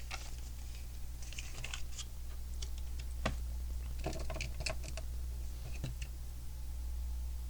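Lego plastic bricks and parts being handled and pressed together: scattered small clicks and taps, with a sharper click about three seconds in and a cluster of clicks soon after, over a steady low hum.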